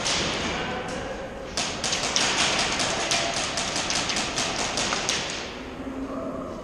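A rapid, even string of sharp cracks, about six a second for some three and a half seconds, then stopping: airsoft guns firing in quick succession, echoing in a large concrete hall.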